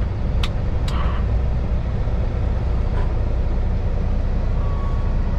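Heavy truck's diesel engine running with a steady low drone, heard from inside the cab. Two sharp clicks come near the start.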